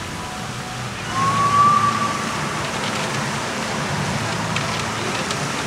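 A single high, whistle-like tone, rising slightly and then held for about a second and a half, starting about a second in, over steady outdoor background noise with a low hum.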